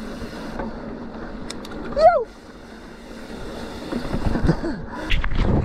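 Mountain bike rolling fast over a dirt singletrack: steady tyre and wind noise with bumps and rumble that grow heavier over the last second or two. About two seconds in there is one short squeak that rises and falls.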